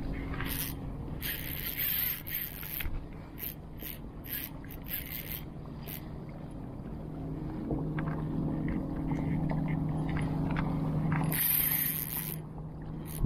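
Fishing reel being cranked: a steady mechanical whirr of its gears, louder from about eight seconds in, with scattered clicks.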